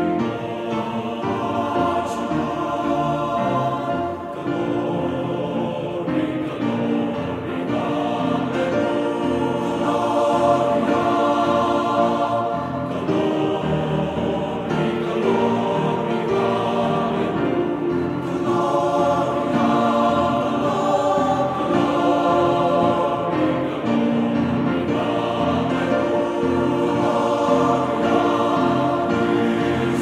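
Background music with sustained, choir-like singing voices.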